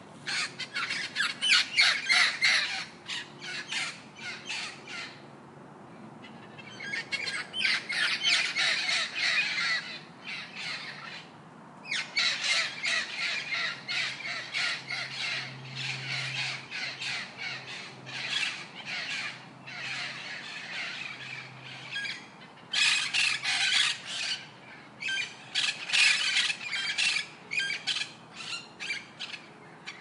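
Birds squawking and calling in rapid runs of short calls, in bursts with brief pauses between them.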